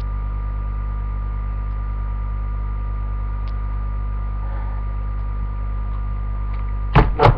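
Steady electrical mains hum with a faint hiss, and two loud, quick handling bumps close to the mic near the end.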